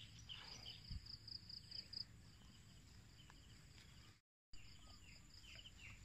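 Faint outdoor ambience of insects calling in an evenly pulsed trill, with a few short bird chirps. The sound drops out completely for a moment about four seconds in.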